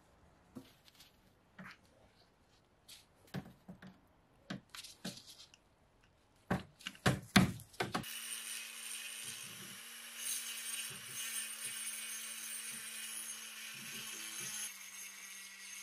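Scattered clicks and knocks as a small abrasive bit is handled and fitted into a flex-shaft rotary tool, loudest just before eight seconds in. Then the rotary tool runs steadily with a hum and high hiss, its conical grinding stone grinding rust off the iron head of an old mortising axe.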